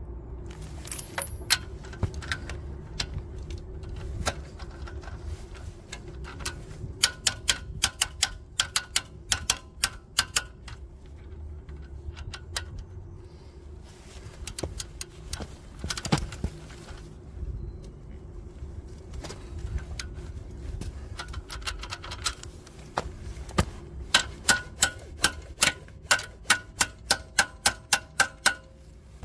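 Hand ratchet clicking in runs of about four clicks a second, each click with a short metallic ring, as a bolt is turned; one louder knock about halfway through.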